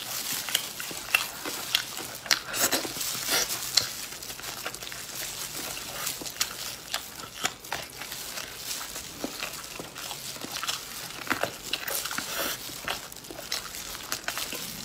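Close-up eating sounds: wet chewing, lip smacks and sharp mouth clicks while meat is bitten and gnawed off a bone, with clear plastic gloves crinkling now and then.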